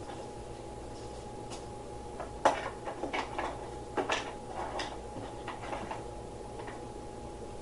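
Light knocks and clicks of objects being handled, a cluster of them from about two and a half to five seconds in, over a faint steady hum.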